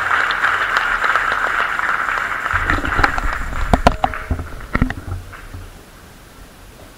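Audience applauding, the clapping fading away over the first four seconds, with a few sharp knocks and low thumps around the middle.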